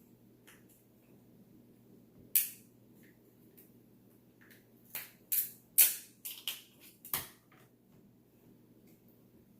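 Seafood shells, such as crab legs, being cracked and snapped apart by hand: a sharp crack about two seconds in, then a quick run of about six more cracks a few seconds later.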